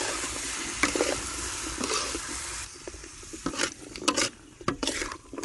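Carrot slices and bell pepper sizzling in a hot wok while a spatula stirs and scrapes them against the pan. The sizzle drops away about halfway through, leaving a quick run of separate scraping strokes.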